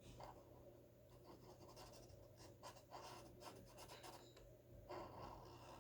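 Black Sharpie marker stroking across paper in short, faint strokes while drawing.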